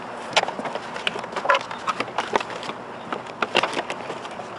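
Irregular sharp plastic clicks and knocks from a car's interior door panel being handled while its door-lock cables and wiring clips are unhooked and unplugged.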